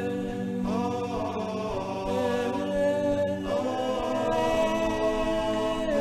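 Chanted vocal music: a slow sung melody over a held low drone, with a new phrase starting about half a second in and another about three and a half seconds in.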